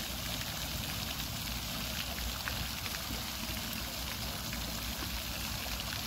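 Steady rush of running, splashing water on a park pond, an even wash of sound dotted with small drop-like ticks.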